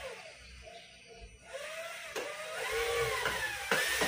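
Cordless drill driving a screw through a wooden crossbar into PVC pipe. Its motor whine rises and falls in pitch and gets louder toward the end.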